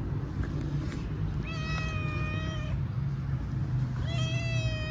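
Cat meowing twice, each a long drawn-out meow at a steady pitch. The first comes about a second and a half in, and the second starts near the end. A steady low rumble runs underneath.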